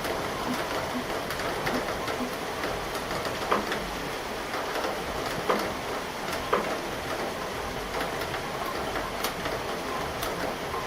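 Steady rain falling, with scattered sharp drop taps on a nearby surface, a few louder taps standing out.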